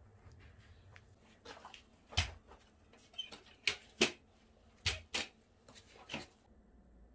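A run of about ten sharp clacks and knocks over four seconds, then quiet: footsteps on a wood-chip floor and a metal-framed folding chair being carried and set down.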